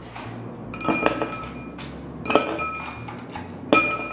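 Dishes and glass clinking at a kitchen sink: a few sharp, ringing clinks about a second in, then single clinks about halfway and near the end.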